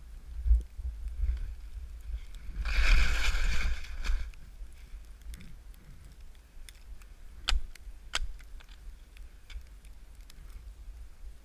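Skis sliding over snow under a steady low rumble, with one loud hissing scrape of skis across the snow about three seconds in. Two sharp clicks follow a little over halfway through.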